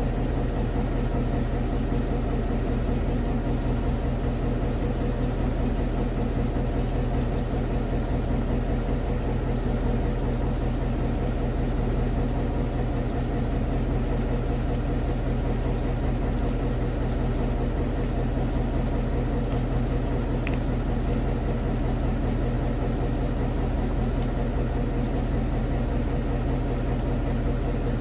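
Fishing boat's engine running steadily at a low idle, an even hum that does not change.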